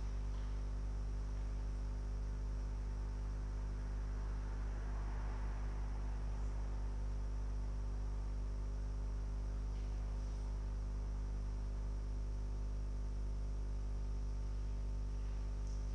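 Steady low electrical mains hum with a faint, steady high-pitched whine above it.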